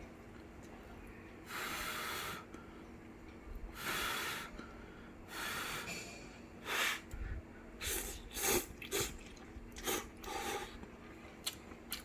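A person slurping and breathing noisily over a bowl of very spicy instant ramen: about nine short, noisy slurps and breaths, three longer ones spaced out, then shorter and quicker ones in the second half.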